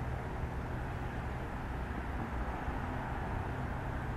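Steady low rumble and drone of an approaching EMD F40PH diesel locomotive still some distance off, over an even wash of background noise.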